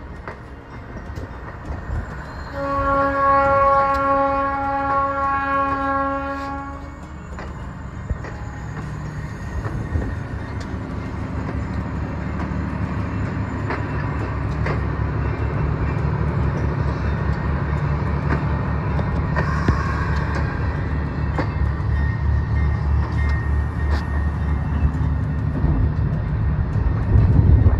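Budd RDC passenger train sounding its air horn in one long blast from about two seconds in to about seven seconds. Its diesel engines then rumble and its wheels clack rhythmically as it rolls past, the rumble building toward the end.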